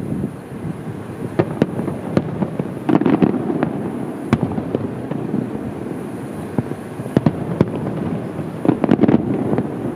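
Fireworks display: irregular booms and pops of aerial shells bursting, with a cluster about three seconds in and another near the end, over steady low background noise.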